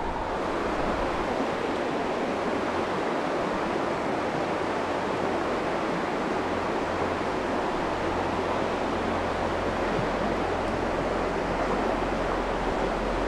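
Creek water rushing steadily, a constant even wash, with a low rumble, likely wind on the microphone, growing in the second half.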